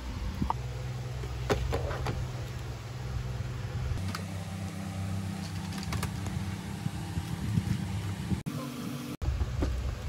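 A steady low hum with a few light clicks and taps as the plastic parts of a coffee grinder and drip coffee maker are handled. The hum changes abruptly about four seconds in and drops out twice for an instant near the end.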